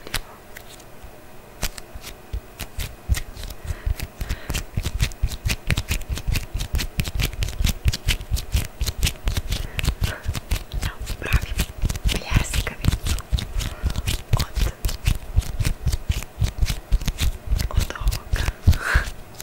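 Close-miked rapid clicking and tapping from hands working an object, several sharp clicks a second, an ASMR trigger sound.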